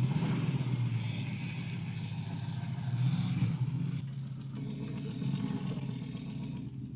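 Engine of a classic Daimler 2.5-litre V8 saloon running as the car drives off, a steady low note that swells about three seconds in and then eases off as the car moves away.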